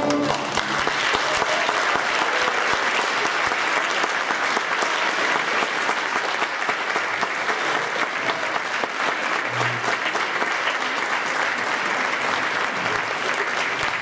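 A string orchestra's closing chord dies away in the first half second, and the audience breaks into steady, sustained applause.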